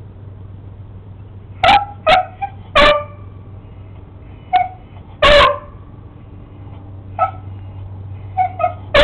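Beagle barking at a lizard: short single barks, about eight of them, starting a second and a half in, the longest and loudest about halfway through.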